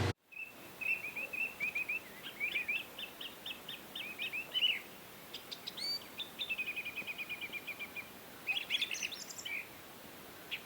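Songbirds chirping and singing: a run of short, quick chirps and whistled notes, with a rapid trill of repeated notes a little past the middle.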